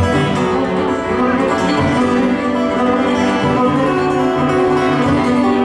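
Fiddle and acoustic guitar playing a ragtime instrumental together live, the fiddle holding long bowed notes over the guitar's picked accompaniment.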